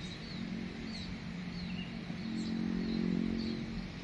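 A steady low motor hum, like an engine or drone running, that swells about two seconds in and eases off near the end, with small birds chirping over it.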